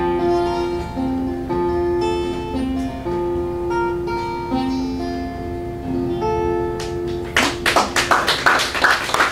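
Acoustic guitar playing a slow closing phrase of single held notes at the end of a folk song. About seven seconds in, an audience starts applauding.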